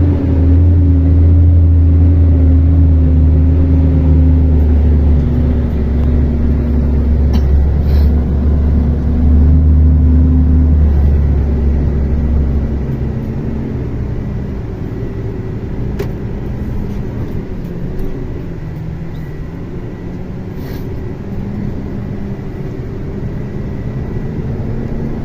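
Mercedes-Benz Axor 2644 truck's six-cylinder diesel engine pulling hard under load. About halfway through it eases off and runs quieter.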